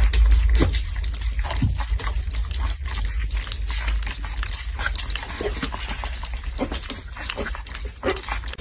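A litter of puppies eating wet food from bowls: a dense, continuous run of wet smacking and lapping noises with a few short grunts, over a steady low hum.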